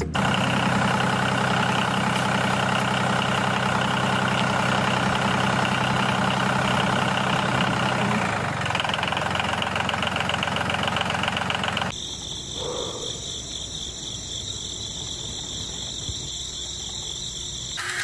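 Miniature DIY toy tractor's small motor running steadily, its tone changing about eight seconds in. About twelve seconds in the sound drops suddenly to a quieter machine hum with a thin, steady high whine.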